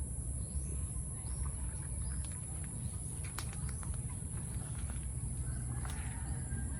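Outdoor farm ambience: gusty wind rumbling on the microphone, with scattered short bird chirps and a steady high insect drone.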